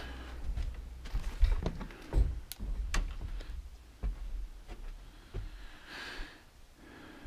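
Irregular clicks and knocks, some sharp, over a low rumble, with a short hiss about six seconds in.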